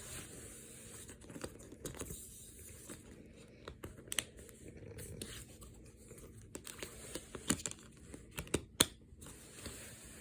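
A plastic Blu-ray case being opened and handled, with faint crinkling and scattered sharp clicks, the loudest clicks in the second half.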